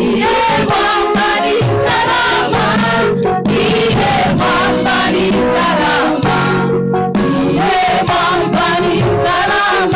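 Gospel song with a choir singing over a band, with a steady beat.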